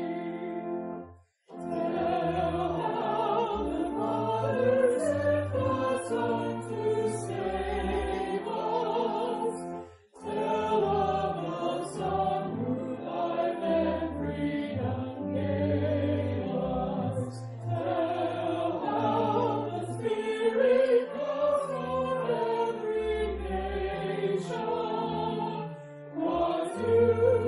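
Voices singing a hymn over an instrumental accompaniment that holds low bass notes. The music breaks off briefly, about a second in and again about ten seconds in, between phrases.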